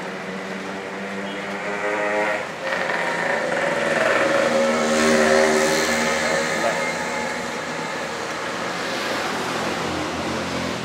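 A motor vehicle engine running as it passes, growing louder toward the middle and then fading.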